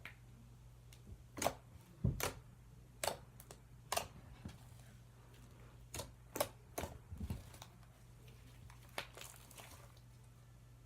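Slime being mixed by hand, giving off sharp sticky clicks and pops, about ten of them at irregular intervals, over a faint steady hum.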